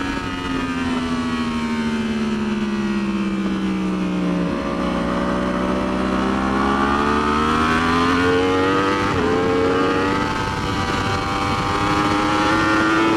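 Yamaha R1's crossplane inline-four engine heard onboard at track speed. The engine note falls smoothly for about four seconds as the bike slows into a corner, then climbs steadily as the throttle opens on the exit, over steady wind noise.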